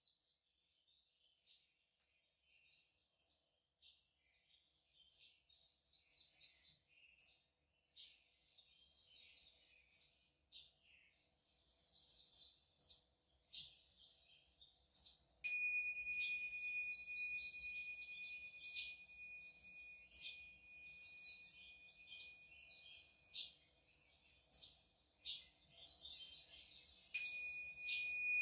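Many birds chirping and singing, a dense chorus of short high calls that grows louder halfway through. A high metal chime or bowl is struck twice, about halfway through and again near the end, and each stroke rings on as a steady high tone.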